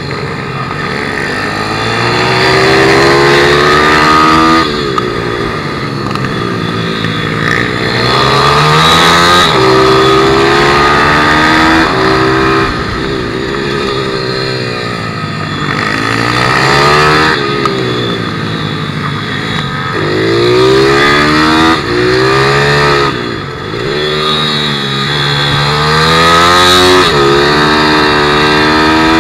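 160cc pit bike's single-cylinder engine at race pace, heard onboard: it revs up and falls back again and again, with sudden drops in pitch as the rider shifts and brakes for the corners.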